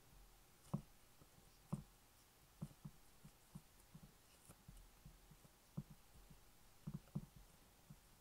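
Faint, soft, dull taps and thuds, irregularly spaced, as fingers tuck and press puff pastry around the rim of a glass pie dish; the strongest come about one and two seconds in.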